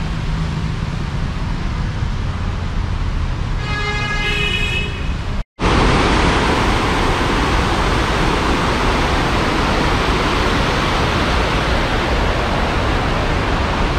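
Street traffic running past, with a horn-like tone sounding for about a second and a half near the middle. The sound then cuts out abruptly and comes back as a louder, steady rushing hiss.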